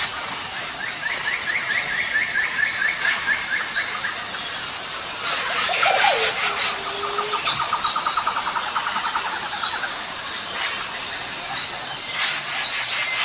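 Forest ambience: a steady high-pitched insect drone, with rapid pulsed trills, one starting about a second in and another about seven seconds in.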